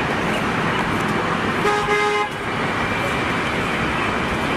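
A vehicle engine running steadily, with one short horn honk about two seconds in, a vehicle sound effect for a bus.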